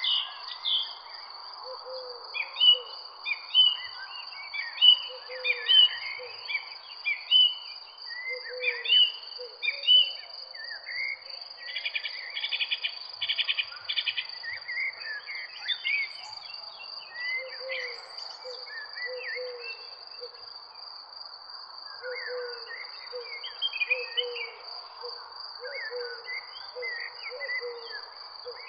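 Several birds chirping and whistling over a steady high-pitched insect drone. Short low hooting notes repeat in small groups, most often in the second half. About twelve seconds in, a rapid trill runs for a couple of seconds.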